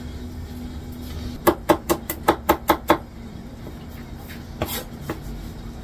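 Knife chopping chili peppers on a plastic cutting board: a quick run of about eight chops, roughly six a second, about a second and a half in, then two single chops near the end.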